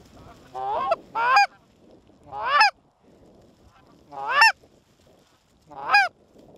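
Canada goose honks: five loud calls spread over a few seconds, each rising in pitch as it goes.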